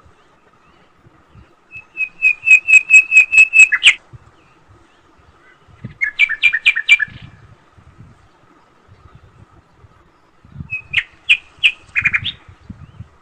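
A bird chirping in three short runs of rapid repeated notes: one about two seconds in, one about six seconds in, and one near the end.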